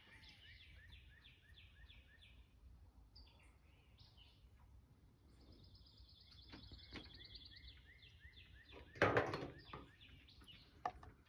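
Faint bird calls: series of short repeated chirps, about four a second, then a steady rapid trill. A brief louder rustle or bump about nine seconds in.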